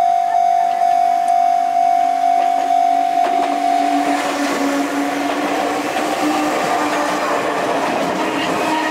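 A level-crossing warning bell ringing steadily at about two strokes a second, then a train passing from about four seconds in, its rumble and rail noise covering the bell.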